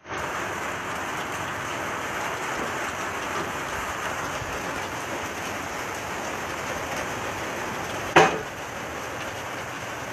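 Steady rushing hiss of stormy weather, with one sharp knock a little after eight seconds in.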